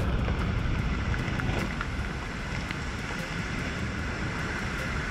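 Low rumble of a large shoreline rock blast across open water as it dies away, with wind buffeting the microphone. It is a little louder for the first second and a half, then steady.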